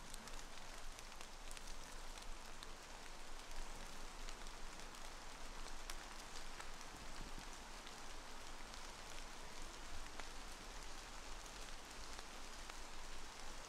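Rain falling on a forest canopy and leaf litter: a steady soft hiss with scattered single drops ticking.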